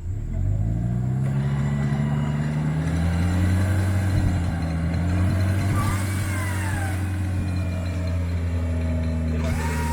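Off-road 4x4's engine revving up over the first second and a half, then running steadily at high revs.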